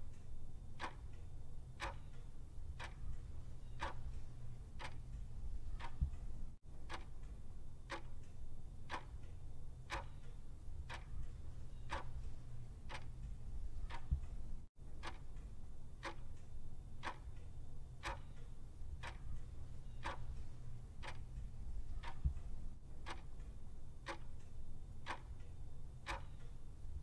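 Clock-ticking sound effect for a countdown timer: steady, evenly spaced ticks over a low steady hum.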